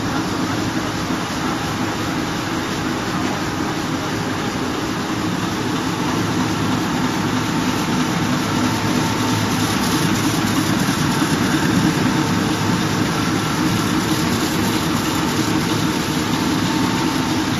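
Industrial printing press running: a steady, dense mechanical din with a few faint steady whines, growing slightly louder about six seconds in.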